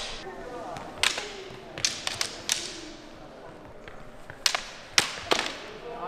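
Sharp clacks and thuds from fencers sparring with synthetic training swords, about seven separate hits scattered through, over faint voices.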